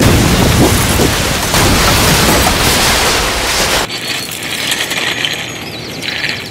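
Industrial demolition: a loud, dense rumble of blasting and collapsing structures that lasts about four seconds and cuts off abruptly, followed by quieter steady outdoor noise.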